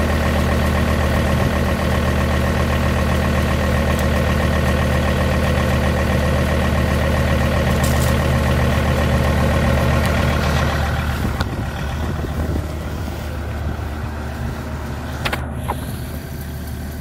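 Volvo XC90 engine idling steadily shortly after a cold start, getting quieter about eleven seconds in, with a few light clicks.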